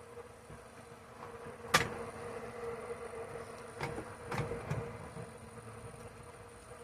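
A sharp knock about two seconds in, then a few lighter knocks and low handling clatter, over a faint steady hum.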